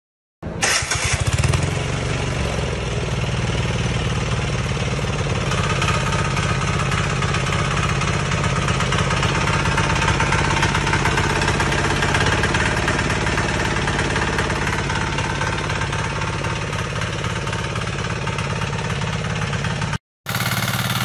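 Single-cylinder air-cooled 173 diesel engine of a walk-behind rotary tiller running steadily while tilling soil. The sound comes in suddenly about half a second in and drops out for a moment near the end.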